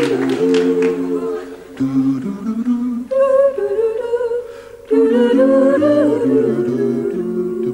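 A small a cappella group of men's and women's voices singing a wordless, hummed harmony. The held chords change about once a second, with a short break near five seconds in.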